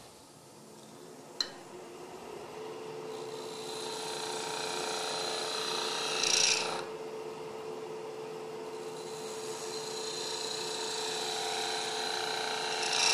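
Skew chisel taking a shear cut across spinning soft white maple on a wood lathe: a steady hiss of the cut over the lathe's hum, building over the first few seconds, with louder bursts about six seconds in and near the end. A sharp click about a second and a half in.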